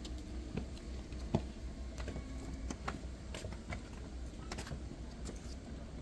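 Light footsteps on a stone path, a soft tap about every two-thirds of a second, over a faint low rumble.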